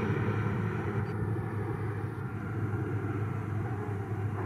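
ATR 72-600 turboprop airliner's twin engines and propellers running at departure power, a steady low drone that fades slowly as the aircraft moves away.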